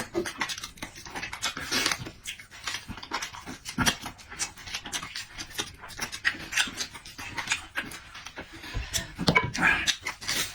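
Close-miked chewing and lip-smacking of a person eating, a dense irregular run of short wet clicks.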